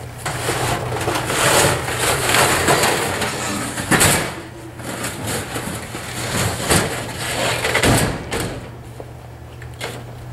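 Scrap metal being scraped and clattered into a pickup truck bed, with two sharp metal knocks about four and eight seconds in, over the steady low hum of the idling truck engine.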